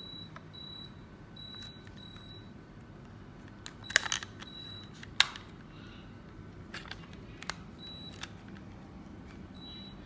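Midea ceiling cassette air conditioner's indoor unit giving short, high beeps, about ten at irregular spacing, each acknowledging a button press from its remote, over a low steady hum. A few sharp clicks come between them, the loudest about five seconds in.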